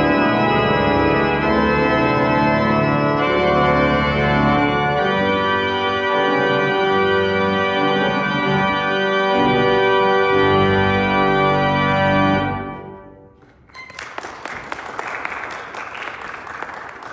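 Church organ playing sustained chords, which die away about twelve seconds in. A second or so later, hand clapping begins.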